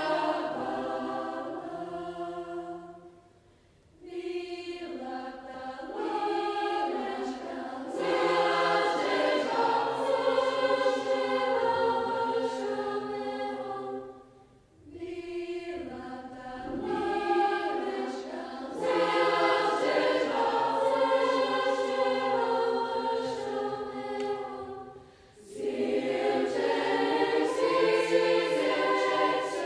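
Girls' school choir singing in several parts with piano accompaniment, in long phrases broken by brief pauses about four, fifteen and twenty-five seconds in.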